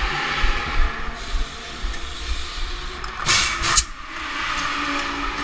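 Busy race-garage din with camera-handling knocks and rumble, and a short, loud double burst of hissing about three seconds in.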